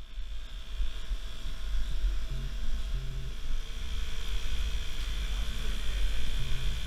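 Electric tattoo machine running steadily, a low droning hum with a thin high whine above it.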